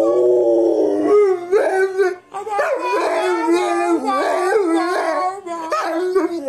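A black-and-tan dog howling and 'talking' in long, warbling notes that bend up and down. It opens with a held note about two seconds long, breaks off briefly, then goes on in shorter rising and falling yowls.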